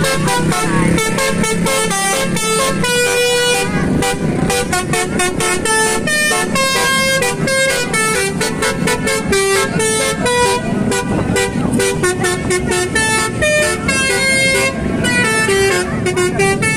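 Basuri-style telolet horn, a multi-tone vehicle air horn, playing a fast melody of held notes that change several times a second without a break.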